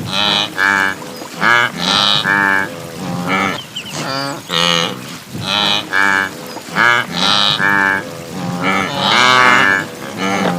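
A herd of wildebeest (gnu) calling: many short, nasal lowing calls, several a second, overlapping one another without pause.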